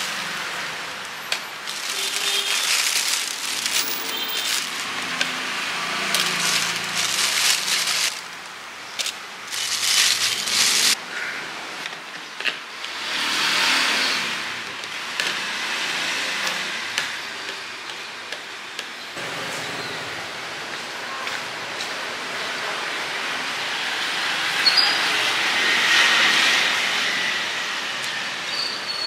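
Roadside food stall ambience: traffic noise from the street with a few passing swells, and scattered sharp clicks and knocks.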